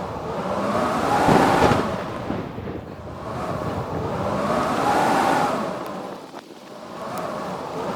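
Blizzard wind howling in gusts, swelling and fading about every three and a half seconds, each gust carrying a moan that rises and then falls in pitch.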